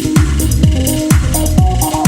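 Background electronic dance music with a steady four-on-the-floor kick drum, about two beats a second, under synth notes.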